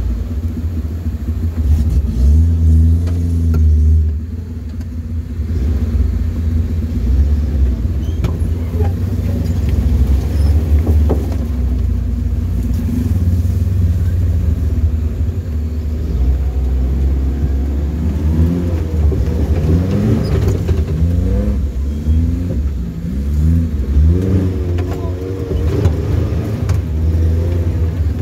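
An off-road 4x4's engine runs under load in low gear with a heavy low rumble, pulling along a rutted mud trail. In the second half it is revved up and down several times in quick succession as the vehicle works through the ruts.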